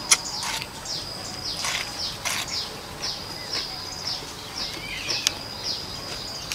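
A crisp bite into a raw chayote followed by rhythmic wet crunching as it is chewed, about two chews a second, with a steady high-pitched whine behind it.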